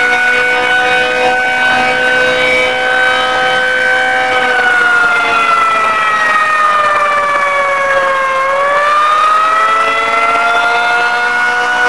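Federal Signal 2T22A dual-tone rotating outdoor warning siren sounding a steady wail: a sustained chord of several tones whose pitch sags from about four seconds in and climbs back toward the end. Its lower intake is blocked, giving a little more rotor speed and an unusual tone.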